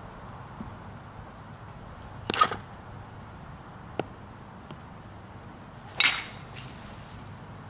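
A metal baseball bat hits pitched balls twice, each a sharp crack: one about two and a half seconds in and one, with a short ringing ping, about six seconds in. A faint click falls between them.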